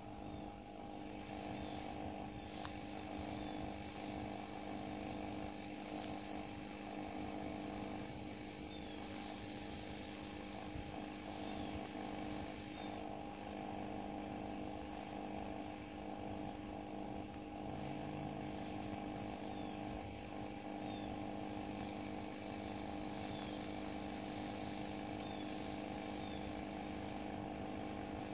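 A steady hum of several low tones runs throughout, from a running machine or appliance. Faint short high chirps come every second or two.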